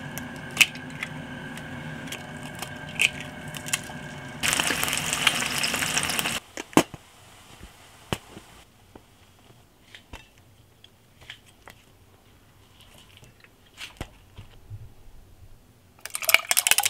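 Kitchen cooking sounds. A pan is set on a gas hob over a steady hum, with a few clicks, and about four and a half seconds in there are some two seconds of loud sizzling in the hot pan. Then come quiet clicks and a squeeze bottle of sauce squirting onto English muffins, and near the end a fizzy drink is poured over ice.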